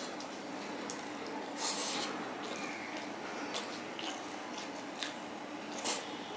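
Fingers mixing cooked rice on a steel plate: soft, sticky squishes and small wet clicks, with a brief louder rustle about two seconds in and another near the end.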